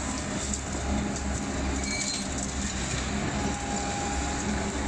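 Hyundai tracked excavator's diesel engine running steadily as it works a rubble pile, a continuous low rumble.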